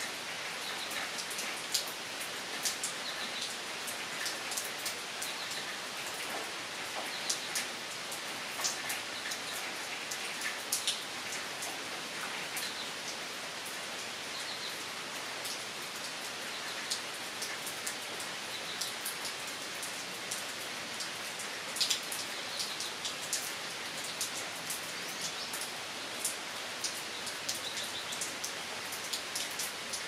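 Steady rain falling on woodland foliage: an even hiss with louder single drops ticking now and then.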